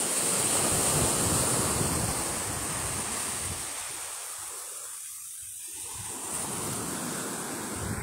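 Sea surf breaking and washing up on a sandy beach, swelling in the first couple of seconds and then easing, with wind buffeting the microphone.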